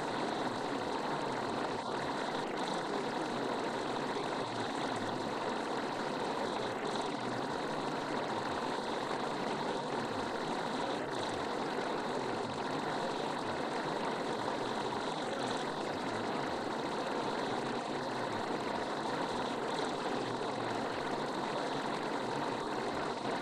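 Steady, even background noise like a hiss, with no breaks or changes in level.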